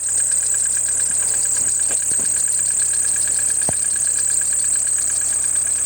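Fourth-generation Kia Carnival engine idling with a steady high-pitched whistle over it, which the owner traces to the alternator drive belt. A single brief click about halfway through.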